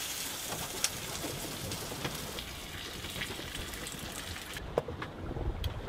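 A fish fillet sizzling in a frying pan, a steady spitting hiss, with a couple of sharp clicks from the spatula against the pan. The sizzle drops away about three-quarters of the way through.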